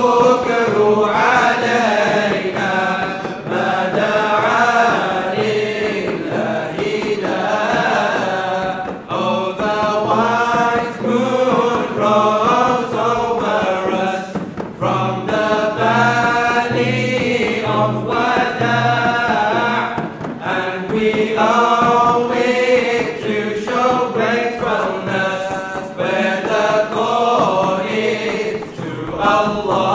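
A male vocal group chanting a devotional nasheed together, accompanied by hand-struck frame drums keeping a slow beat.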